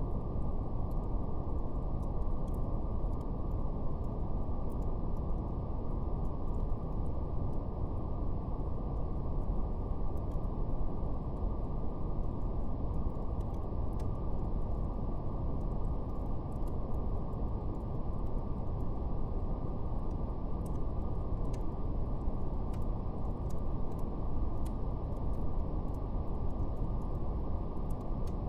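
Steady, deep brown noise with the highs cut off, and faint scattered crackles of a fire.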